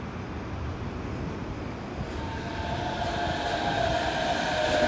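Suspended monorail train approaching the platform, its running noise growing steadily louder as it nears, with a steady whine coming in from about two seconds in.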